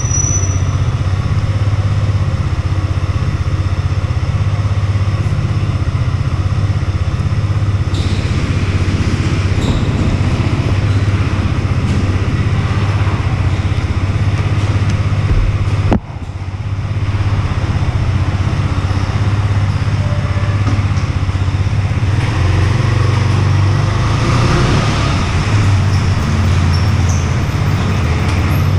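Husqvarna Svartpilen 125's single-cylinder 125cc engine running at steady revs, with a brief sharp dip in level about halfway through.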